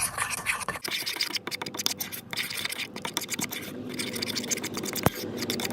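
A utensil stirring and scraping in a bowl, mixing a thick paste of craft glue, cornstarch and baking soda, in quick scratchy strokes; one sharp click about five seconds in.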